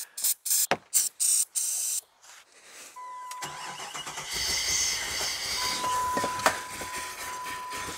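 Short hisses of starting fluid sprayed into the intake, then the 5.9-litre V8 of a 1998 Jeep Grand Cherokee starts about three and a half seconds in and keeps running on the starting fluid, which stands in for its clogged fuel injectors.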